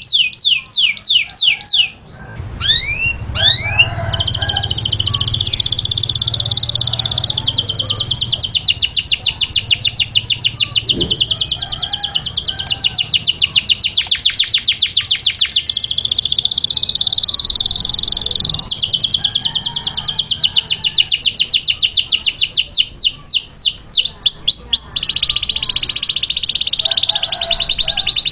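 Canary singing: a burst of fast downward-sweeping notes, then long, very rapid high-pitched trills that run almost without a break, returning to sweeping notes near the end.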